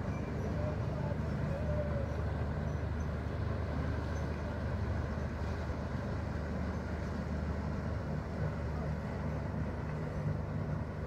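Engine of a passing river vessel running: a steady, deep drone with a low hum.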